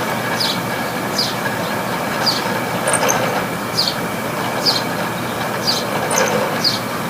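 Room air conditioner running with a steady mechanical noise and a short falling swish a little more than once a second, about eight in all: its fan blades sloshing through water. The uploader takes it for a failed unit with the compressor in overload.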